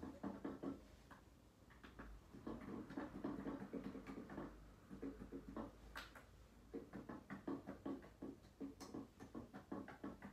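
Faint, rapid mechanical clatter of a Roland D-50 synthesizer's panel buttons and keys being pressed, with no synth voice sounding, a short pause about a second in.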